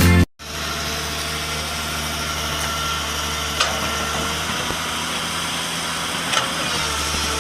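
An engine running steadily at a construction site, with two short sharp knocks, one about three and a half seconds in and one about six seconds in. Background music cuts off just at the start.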